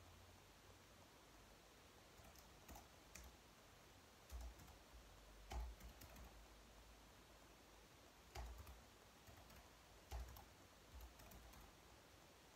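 Faint, sparse typing on a slim low-profile keyboard: scattered key clicks in irregular runs, with a few soft low thumps among them.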